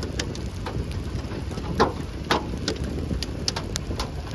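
Hailstones beginning to fall, striking the car in scattered sharp knocks, irregular and a fraction of a second to a second apart, over a steady low rush of rain and wind.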